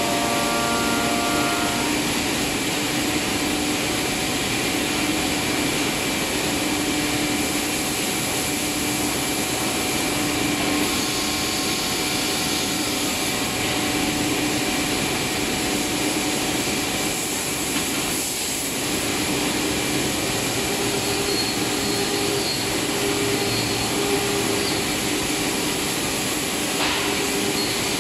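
CNC wood router's spindle running and milling a circular groove into a wooden panel: a loud, steady machining noise with a high whine that holds through.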